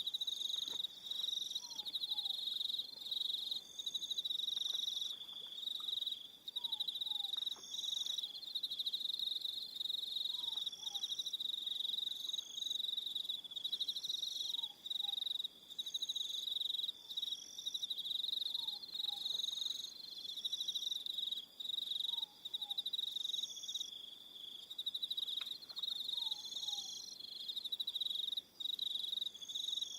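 Evening crickets chirring in a steady high-pitched trill, with other insects pulsing on and off at higher pitches. A faint falling two-note call repeats about every four seconds.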